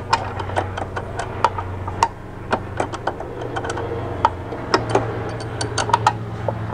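Irregular light metallic clicks and ticks, a few a second, as a brake line flare nut is spun by hand onto its threaded port on a BMW E46 DSC (ABS) unit. A steady low hum runs underneath.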